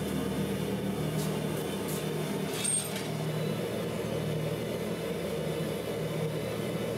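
Propane gas forge running steadily with a constant burner rush, with a few faint clicks of metal.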